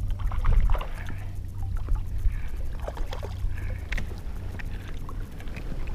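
Small largemouth bass splashing and thrashing at the water's surface while it is reeled in, in short irregular splashes over a steady low rumble.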